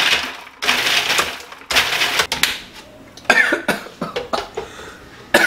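Cuisinart food processor pulsed to chop garlic, a chili pepper and cooked monkey puzzle seeds: three bursts of about a second each, then several shorter pulses a little after the halfway point.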